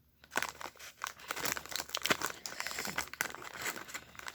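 Plastic snack wrapper crinkling and rustling as it is handled: a dense, irregular run of small crackles.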